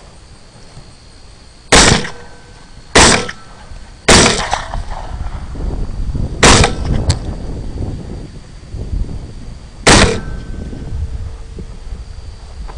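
Five rifle shots from an AR-15, irregularly spaced over about eight seconds, each a sharp crack with a short echoing tail.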